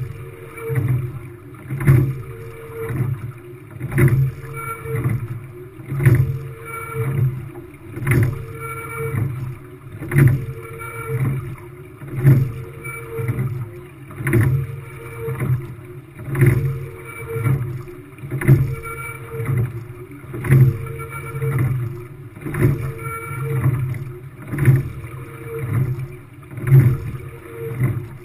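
Sculling boat under way at a steady stroke rate of roughly one stroke every two seconds: each stroke brings a knock from the oars and riggers and a surge of water along the hull, with a short ringing tone between strokes.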